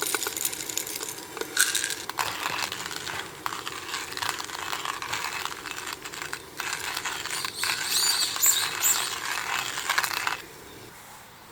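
Hand coffee mill grinding beans: a dense, gritty crackle of crushing beans that cuts off suddenly near the end.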